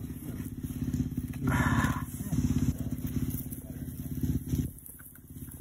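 Small engine running steadily with a low, even chugging pulse.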